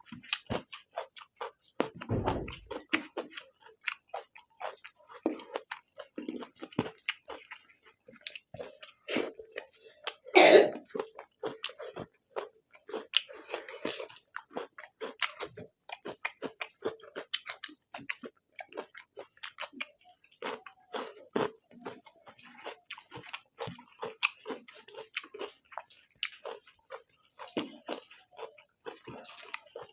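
People chewing and eating rice and egg curry, a dense run of quick wet smacking clicks. A low thump comes about two seconds in, and a louder burst about ten seconds in.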